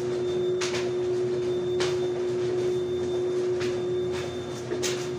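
Panasonic DP-8060 photocopier running with a very bad noise: a steady hum under a sharp hiss that comes back four times, about every one to two seconds. The noise comes from the printing drum.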